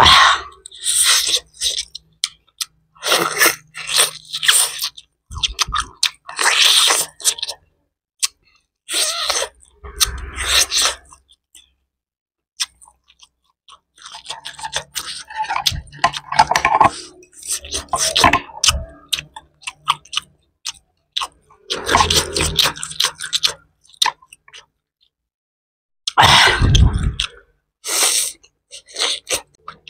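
Close-miked mouth sounds of eating: biting into, tearing and chewing boiled chicken and shredded salad. They come in wet bursts separated by a couple of short pauses.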